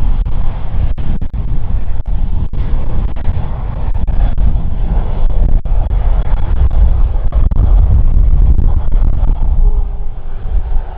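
Airbus A320 jet airliner on its runway roll, its engines giving a loud, deep rumble that swells past its peak about two-thirds of the way through, then eases near the end.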